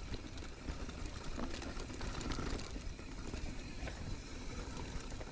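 Mountain bike riding over a dirt and leaf-strewn trail: tyres rolling over dirt and rocks, with scattered rattles and clicks from the bike, over a low wind rumble on the microphone.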